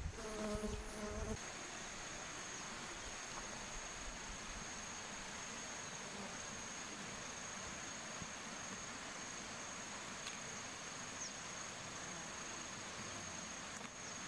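Insects trilling steadily in one unbroken high-pitched note over a faint even hiss, with a few knocks in the first second.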